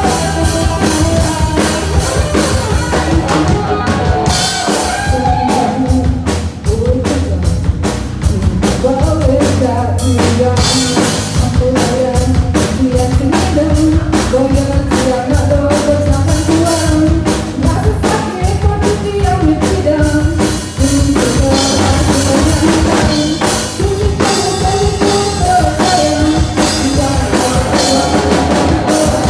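Live rock band playing loudly: a Pearl drum kit keeping a steady beat under electric guitars and bass guitar, with a woman singing lead from about five seconds in.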